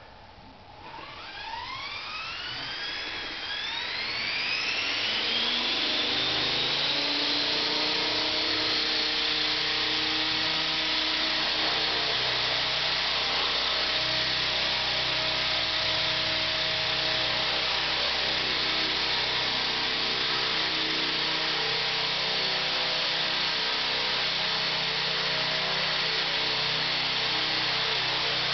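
ESky Belt-CP electric RC helicopter spooling up, its whine rising in pitch over the first few seconds, then running steadily at hover speed with a constant high whine.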